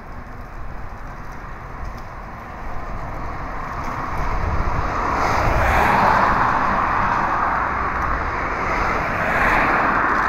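Passing vehicle noise, a rushing sound that swells to a peak about six seconds in and again near the end.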